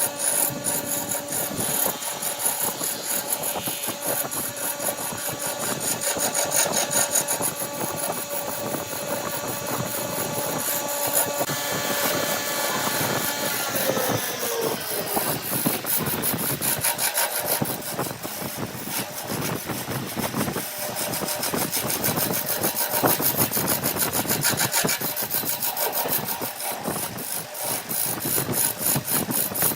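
Power woodworking machine working wood: a steady motor whine that slides down in pitch and fades about halfway through as the machine slows, over continuous scraping and rasping of a cutter on wood that carries on afterwards.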